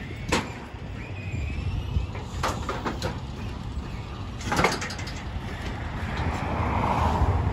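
Car-carrier truck idling with a steady low rumble, with a few sharp metallic knocks from the trailer's decks and controls as they are worked. Traffic noise swells near the end.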